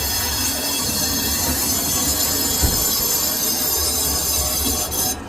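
Steel being cut on a lathe: a steady, high-pitched squeal of the cutting tool against the turning workpiece over a low machine rumble, with one low knock near the middle, cutting off suddenly about five seconds in.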